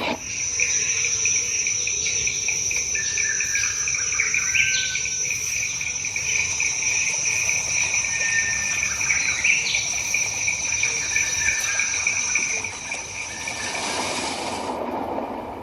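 Insects trilling: a steady high shrill trill over a lower, fast-pulsing one, with a few short chirps mixed in. The higher trill cuts off about three seconds before the end and the rest stops shortly after.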